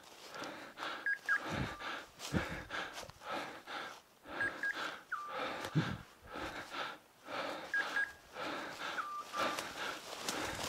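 Footsteps crunching through dry oak leaves and brushing through scrub, with hard breathing and a few dull thumps. Over it, a short electronic beep pattern, two quick high beeps dropping to a lower tone, repeats about every three seconds: a hunting dog's beeper collar sounding in the cover.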